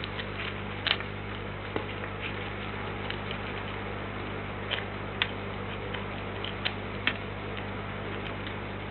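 Steady electrical hum and hiss from a feeder camera's microphone, with a handful of short, sharp ticks scattered at irregular intervals.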